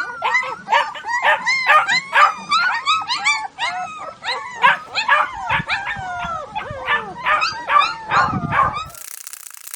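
Dogs yipping and whimpering in a rapid run of short, arching high calls, several a second. They cut off suddenly about nine seconds in, giving way to a steady hiss.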